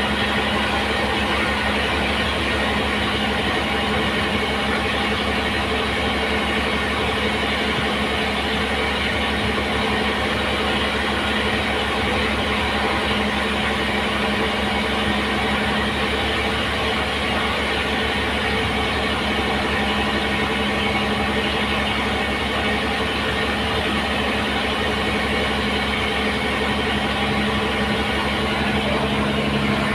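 An engine running steadily at constant speed for the whole stretch, with no change in pitch or level.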